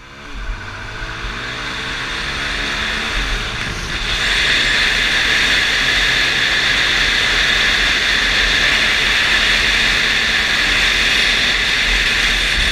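Motorcycle engine accelerating, its pitch climbing over the first four seconds, then running loud and steady at speed with a rushing noise, heard from a camera mounted on the bike.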